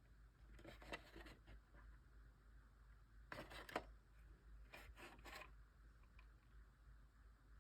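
Near silence with faint handling noise: a few quiet scrapes and clicks in three short clusters, about a second in, midway, and again a second or so later.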